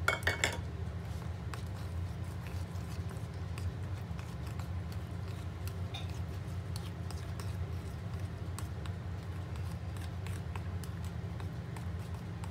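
A spatula stirring grated carrot and whipping cream in a glass bowl: soft wet mixing with occasional light clicks against the glass. A steady low hum runs underneath.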